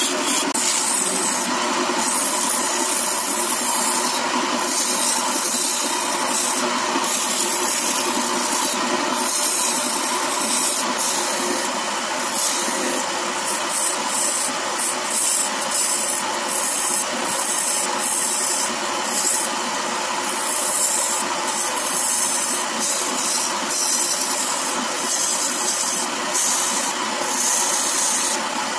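Wood lathe running while a turning tool scrapes grooves into a spinning wooden ball: a steady motor hum under a hissing cut whose high end comes and goes as the tool meets the wood.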